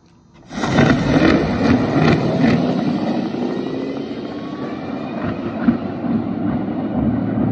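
Electric dragster launching off the start line: a sudden loud rush about half a second in, with a faint rising motor whine. The noise stays loud as the car runs down the strip.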